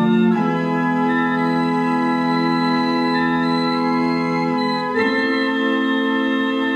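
Pipe organ playing sustained chords from a MIDI file with its stops set remotely. The chord changes about a third of a second in and again about five seconds in.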